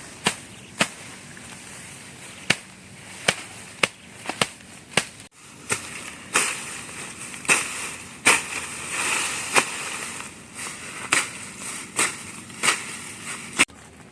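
Repeated sharp, irregular strikes of a hand tool on wood, about one a second, with a rustling, noisier stretch in the middle as branches and leaves are handled.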